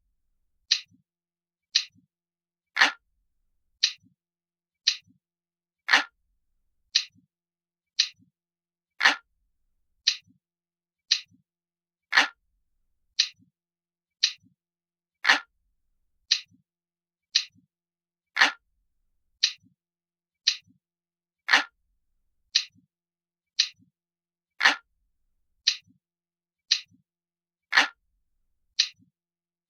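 Analog clock ticking steadily, about one tick a second, with every third tick fuller and louder.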